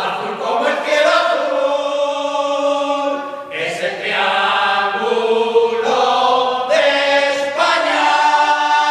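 A small group of voices singing together in chorus, holding long notes and moving to a new note every couple of seconds.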